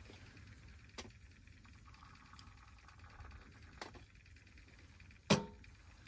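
Quiet handling of camp cookware: a couple of soft clicks, then one sharp metallic clink with a brief ring about five seconds in.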